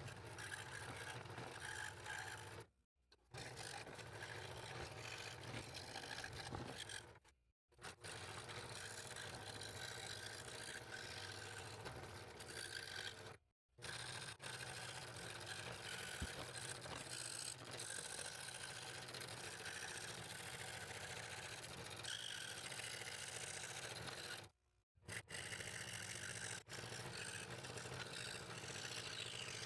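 Scroll saw with a fine No. 3 blade cutting fretwork in purpleheart: a steady motor hum with the faint scrape of the blade in the wood. It cuts off abruptly and starts again four times.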